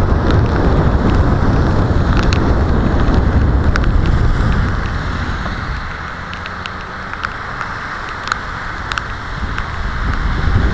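Rain and wind noise on a bicycle helmet camera. A steady rush is loud for the first half and eases off about five seconds in. Scattered sharp ticks of raindrops hit the camera throughout.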